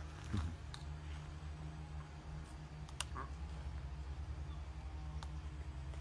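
Hyacinth macaw's beak clicking and tapping: a few sharp isolated clicks, the loudest about three seconds in, over a steady low hum.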